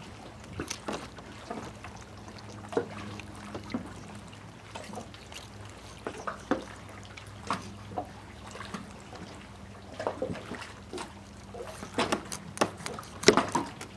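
Fillet knife cutting through a flounder behind the head: scattered short clicks and crunches as the blade works through bone and taps the plastic cutting board, with a denser run of louder ones near the end. A low steady hum sits underneath.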